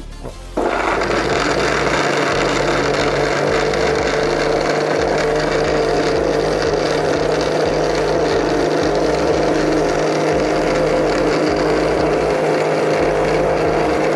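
Electric blender running steadily at one speed, blending falsa berries with ice, water and sugar; the motor starts about half a second in.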